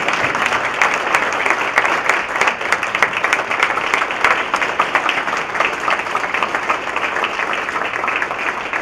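Loud applause from a room full of people, many hands clapping at once in a dense, steady patter.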